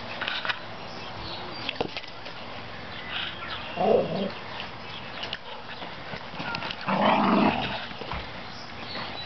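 A dog making two short, loud vocal sounds, about four and seven seconds in, the second a little longer.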